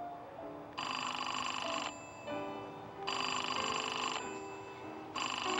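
Payphone ringing: three electric bell rings about a second long, with a gap of about a second between them, the third starting near the end. Soft background music plays underneath.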